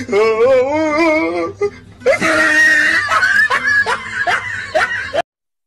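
A person laughing hard: one long wavering laugh, then a louder harsh stretch about two seconds in, then a run of short rising laughs. The sound cuts off abruptly near the end.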